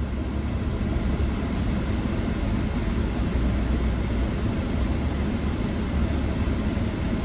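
Car air-conditioning blower running on max cold inside the cabin, a steady rushing over the low rumble of the car.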